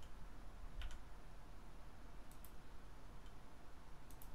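Computer keyboard keys and mouse buttons clicking: a few sharp clicks, some in quick pairs, about one, two and four seconds in, over a low steady hum.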